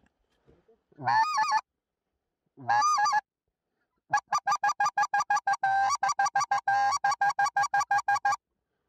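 Goose call blown by a hunter: two drawn-out honks, then a fast even run of short clucking honks, about six or seven a second.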